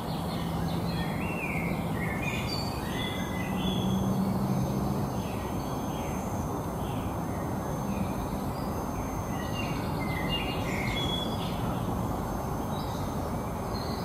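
Woodland songbirds singing in short phrases over a steady background hiss, with a low steady hum in the first few seconds.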